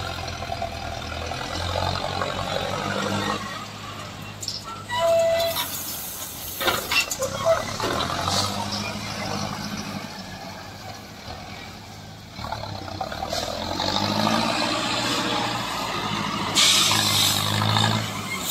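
Diesel engine of a tractor front loader running and working under load while it carries and tips gravel. There is a brief hiss about five seconds in, and a rush of gravel scraping as the bucket digs into the pile near the end.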